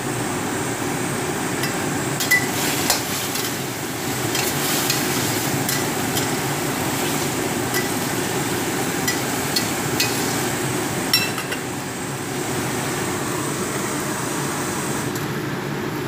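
Green bell pepper and tofu sizzling steadily as they are stir-fried in a stainless steel wok. A metal spatula clinks and scrapes against the pan now and then, in short sharp knocks.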